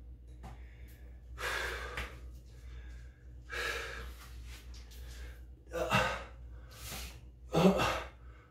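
A man breathing hard after a set of dumbbell shoulder exercises: long, heavy breaths about every two seconds, turning to shorter, sharper voiced breaths near the end.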